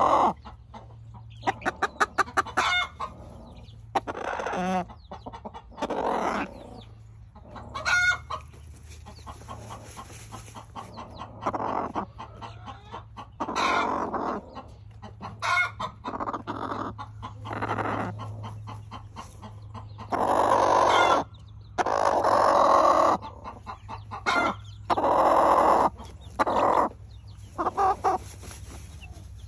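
A hen making contented clucks and soft trills while dust bathing, a sound keepers take for a happy chicken. The calls come in short runs, some as quick rattling trills, and in the second half they mix with longer noisy bursts as she works dirt into her feathers.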